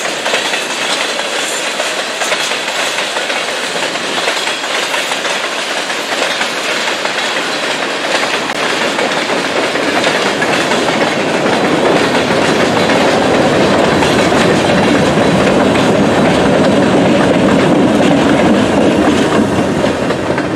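A freight train of empty steel grain hopper cars rolls past at a grade crossing, its wheels clicking and clacking over the rail joints. About halfway through the sound builds and grows heavier as the two trailing EMD GP38M-2 diesel locomotives come by.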